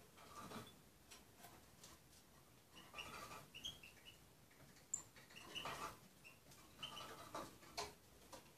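Small songbird pecking at chopped berries in a glass bowl: faint, irregular beak taps and clicks against the glass, some with a brief ringing, coming in small clusters.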